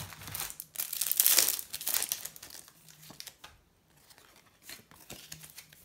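A Match Attax trading-card packet's wrapper being torn open and crinkled as the cards are pulled out. The rustling is loudest in the first three seconds, then dies down to a few faint rustles of the cards being handled.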